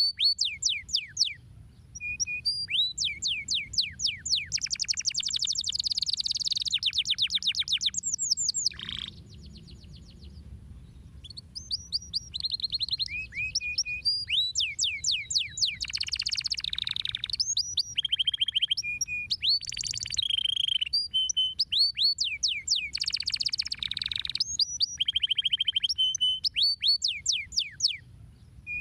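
Canary singing a long song of fast repeated chirps and rapid trills, with a brief lull about nine seconds in.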